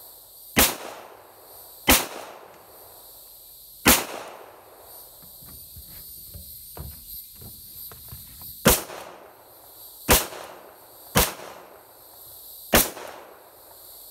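Seven .45 ACP pistol shots from a Glock 41, fired at an uneven pace with a pause of a few seconds in the middle. Each is a sharp crack followed by a short echoing tail.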